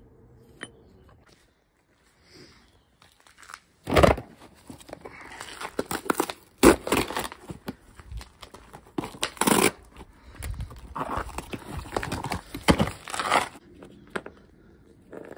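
A cardboard parts box torn open and its packaging crinkled and rustled while a new part is taken out: a run of irregular tearing and crinkling noises starting about four seconds in and stopping shortly before the end.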